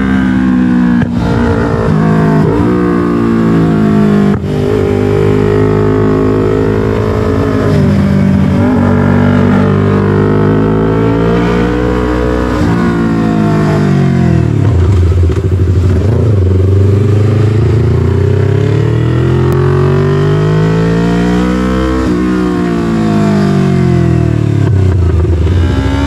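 Yamaha MT-03's 321 cc parallel-twin engine through an SC-Project full exhaust while riding, revving up and down as it accelerates and slows. The pitch climbs and falls repeatedly, with brief dips at quick gear changes about one and four seconds in.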